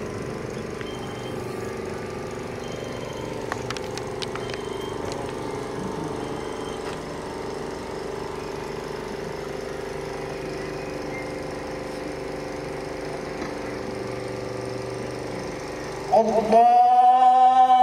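A steady machine drone and low crowd noise while the rows stand in silent prayer. About sixteen seconds in, a man's voice over the loudspeaker calls out loudly in one long, held, slightly wavering call, the imam's takbir of the funeral prayer.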